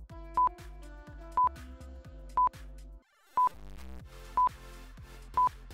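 Quiz countdown timer: a short high beep once a second over background music. The music cuts out briefly about three seconds in, then starts again.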